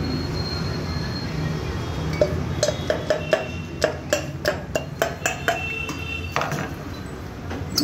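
Royal Enfield cylinder barrel tapped with a pencil inside its bore, about a dozen quick taps roughly three a second, each giving a short metallic ring. A steady low hum runs underneath, and there is a single thump near the end.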